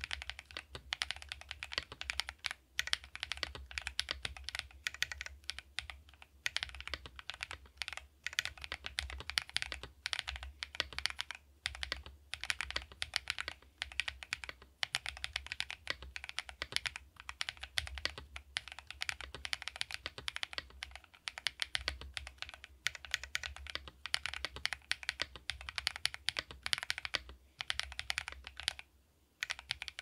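Fast, continuous typing on a GrayStudio Think6.5 V2 mechanical keyboard with 3204-lubed TEC Zaku switches on a polycarbonate plate, with HammerWorks CRP keycaps: a dense run of key clacks. The typing pauses briefly about a second before the end.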